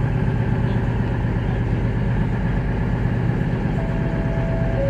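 Class 221 Super Voyager diesel multiple unit standing at the platform with its underfloor diesel engines idling: a steady low rumble. Near the end comes a brief two-note tone that falls in pitch.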